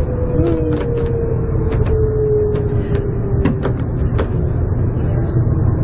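Airport shuttle train (automated people mover) running, with a steady rumble and a thin motor whine that falls slowly in pitch as it slows. Sharp clicks and rattles are scattered throughout.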